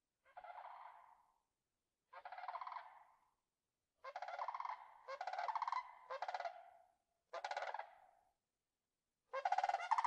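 Sandhill cranes calling as they fly south on migration: seven calls, each about a second long with a fast rattling pulse, coming louder and closer together toward the end.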